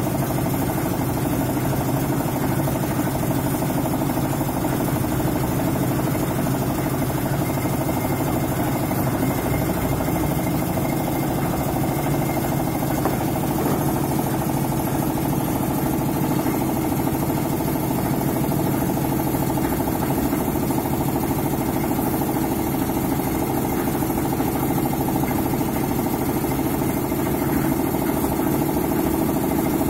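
Engine of a makeshift hoist machine running steadily at an even speed.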